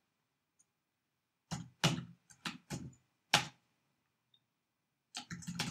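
Keystrokes on a laptop keyboard: a handful of separate key taps starting about one and a half seconds in, then a quicker run of typing near the end.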